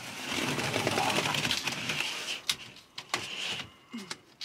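Pleated cab blackout blind being slid across the windscreen along its rail, a rapid rattling slide lasting about two and a half seconds, then a few sharp clicks as it is pressed into place.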